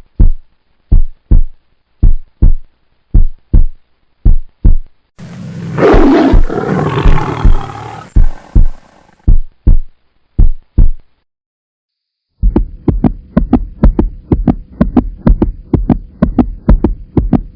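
Sound-effect intro: a heartbeat-like double thump repeating about once a second, then a loud roar that swells and dies away over about three seconds. About twelve seconds in, a fast, dense electronic beat with a held tone begins.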